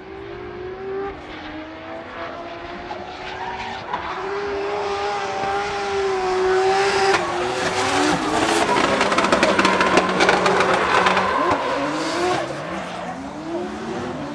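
Drift car engine revving hard at high rpm, its pitch rising and falling as the throttle is worked through a slide, with tyre screech under it. It grows loudest about eight to twelve seconds in, with a rapid crackling, then fades as the car moves away.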